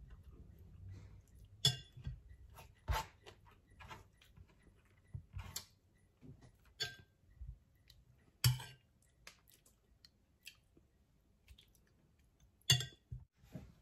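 Close-up eating sounds: a metal spoon clinks sharply against a glass bowl of soup several times, with quiet chewing and mouth sounds in between.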